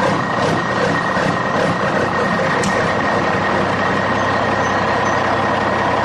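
Steady engine noise of a running vehicle, with a constant high-pitched whine over it.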